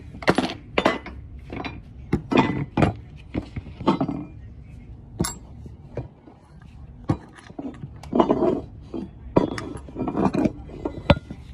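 Thin metal wall molding for a suspended ceiling being worked with tin snips and handled: a run of sharp metallic clinks and short crunchy snips, with pauses between them.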